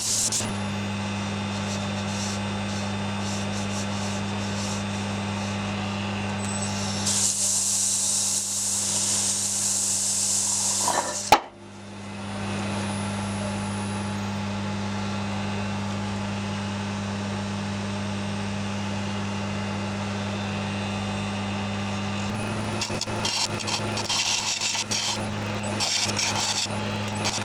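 Wood lathe running with a steady hum while a spinning segmented utile bowl is worked with abrasive paper and turning tools. A stretch of loud hissing abrasion comes about a third of the way in, a sharp click near the middle, and rough, uneven scraping of tool or abrasive on the wood near the end.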